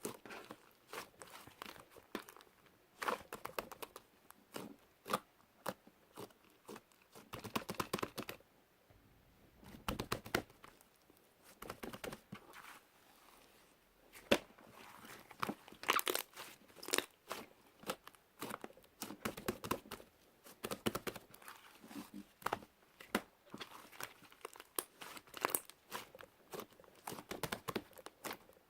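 Pink clay slime being squished and kneaded by hand, giving dense, irregular sticky clicks and crackles, with two short quieter pauses.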